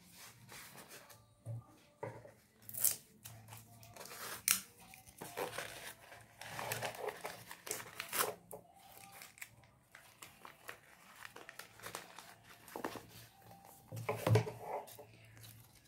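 Paper crinkling and rustling in the hands as a rolled paper tube is squeezed and handled, with scattered light rubs and taps; a few louder crinkles stand out, one near the end.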